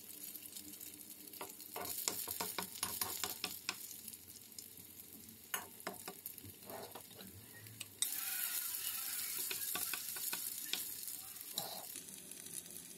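Vegetable-and-minced-meat patties frying in shallow oil in a nonstick pan, a faint crackling sizzle with scattered clicks of a metal fork or spoon against the pan. About eight seconds in, the sizzle suddenly gets louder and denser.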